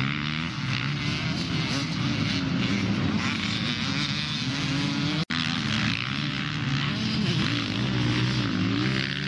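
Several motocross bikes racing, their engines revving up and down with the throttle as they ride the track. The sound cuts out for an instant about five seconds in.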